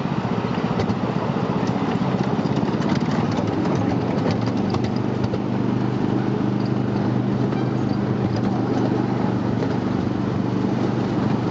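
Ride-on miniature train running along its track: a steady low engine hum with rapid clicking of the wheels over the rails, the hum settling into a more even tone about halfway through.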